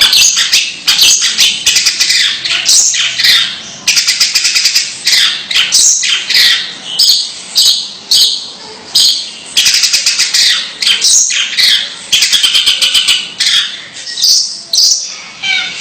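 Long-tailed shrike (cendet) calling without a break: harsh, scratchy chattering notes and fast rattles in quick succession, the 'ngeker' call.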